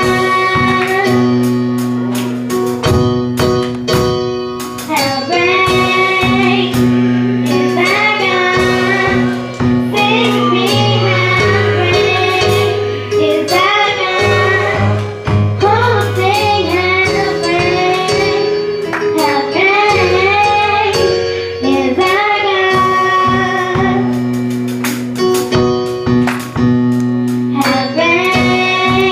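Church choir singing a gospel song of praise, with voices carrying the melody over held low accompaniment notes and a percussive beat.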